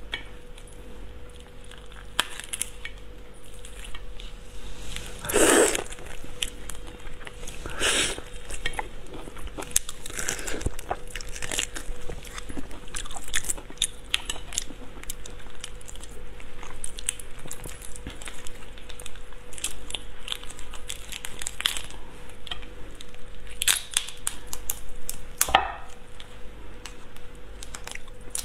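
Raw shrimp shells crackling and tearing as they are peeled by hand, mixed with close-up chewing, picked up by a clip-on microphone. There are many small crackles throughout and a few louder crunches, with a faint steady hum underneath.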